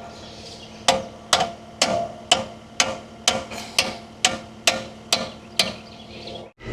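A hammer striking a metal bracket on a skid steer grapple about eleven times at a steady pace of about two blows a second, each blow ringing briefly, to drive the bracket back into place after it was pulled out.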